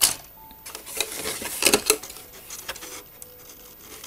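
A cardboard model-kit box and its contents being handled: several sharp clatters and knocks, the loudest right at the start and in a quick cluster about two seconds in.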